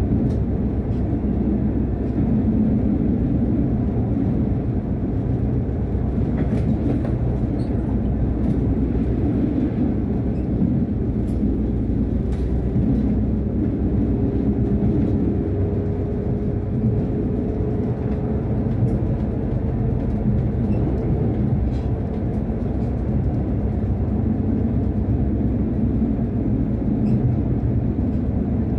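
Tram running along its line: a steady low rumble of wheels on rails, with a faint whine holding one pitch for several seconds midway and light scattered clicks.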